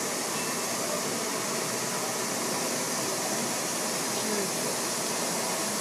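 Steady din of a busy exhibition hall: an even rush of noise with indistinct voices in it.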